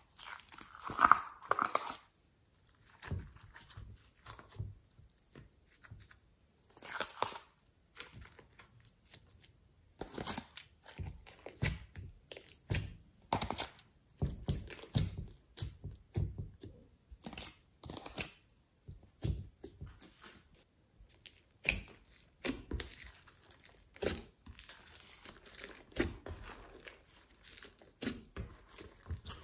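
Soft clay and glossy slime being peeled, pressed and squished by hand: irregular sticky crackles, snaps and tearing sounds, loudest about a second in.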